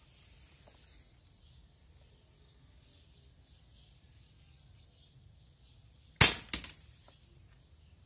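A single shot from a Barra 1866 Cowboy CO2 lever-action BB rifle about six seconds in, followed a moment later by a smaller metallic clank as the steel rat knock-down target is hit and falls over.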